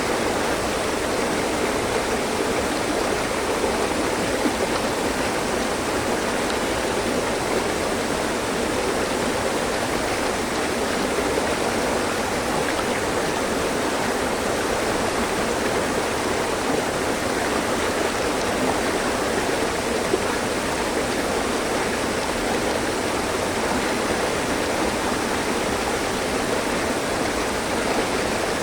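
Mountain stream flowing steadily over rocks, a constant rushing and splashing of water.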